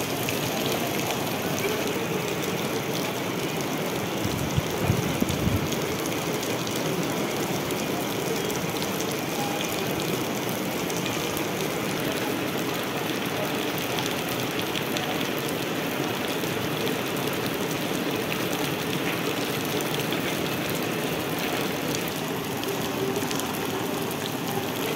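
Heavy rain falling steadily on puddled ground, an even hiss, with a few low thumps about five seconds in.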